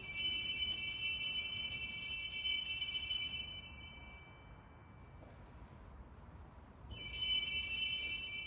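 Altar bells (a cluster of small Sanctus bells) shaken at the consecration, signalling the elevation of the host: a bright jingling ring for about three and a half seconds that dies away, then a second shorter ring about seven seconds in, as the priest genuflects.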